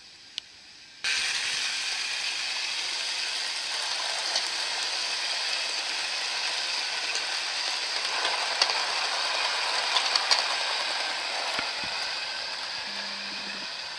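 O gauge 3-rail electric model of a Southern Railway 4-4-4 tank locomotive hauling Pullman coaches along the track close by: a steady mechanical rattle of its drive and wheels, with a few sharper clicks. It starts abruptly about a second in and eases off slightly near the end.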